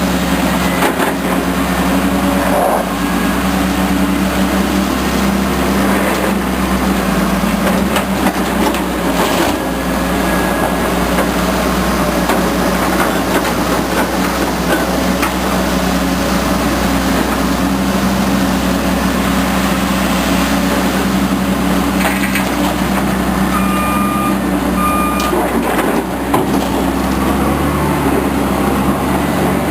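Heavy diesel construction equipment engines running steadily, with two short beeps of a reversing alarm near the end.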